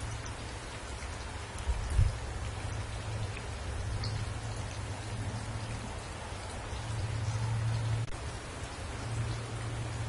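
Steady rain falling on leafy trees, an even hiss with a low rumble underneath and a brief thump about two seconds in.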